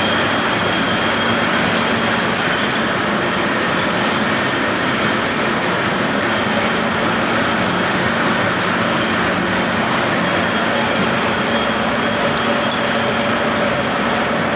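Radial drilling machine running steadily: an even mechanical din with a low steady hum from the motor and gearing, and a few faint ticks.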